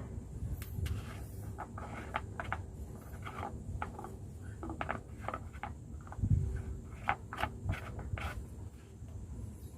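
Irregular small scrapes and clicks of hands working at a backhoe's battery, opening it up to check the electrolyte water level, with a dull knock about six seconds in.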